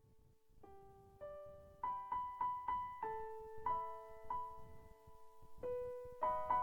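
Background music: a melody of struck piano-like keyboard notes, soft and sparse at first, then louder with notes coming more often from about two seconds in.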